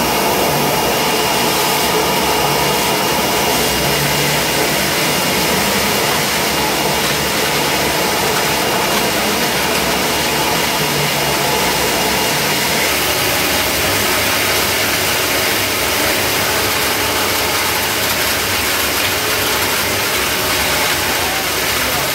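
Bottle-cap inspection machine with a vacuum conveyor running: a steady, loud whirring rush of its vacuum blower and drive motors, with a faint thin high whine that fades about halfway through.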